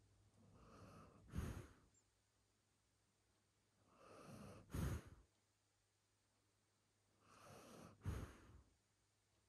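A large dog asleep, breathing slowly through its nose. Three breaths come about three seconds apart, each a soft draw of air that ends in a short, sharper puff.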